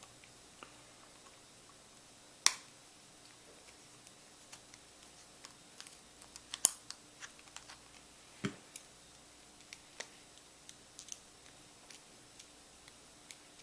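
Sparrows practice lock being taken apart by hand: scattered light clicks and taps of small metal parts and tools, a few sharper ones among them, as the end cap is worked off.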